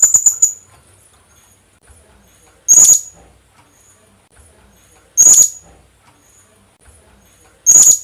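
Philippine hanging parrot (colasisi) giving sharp, high-pitched call notes: a quick run of about four at the start, then single calls about every two and a half seconds, with fainter calls in between. It is a call recording played as a lure to attract the species.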